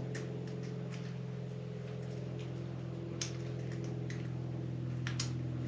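A few light clicks and ticks of electrical plug connectors and wiring being handled, over a steady low hum.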